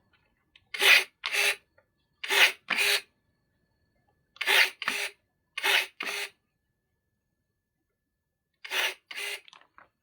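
Short rasping scrapes in pairs, five pairs in all, each stroke under half a second, from roots being worked by hand.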